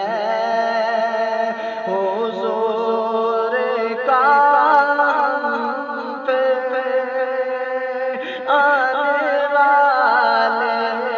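A man singing an Urdu naat, holding long ornamented notes that waver and glide, starting new phrases about four and eight seconds in.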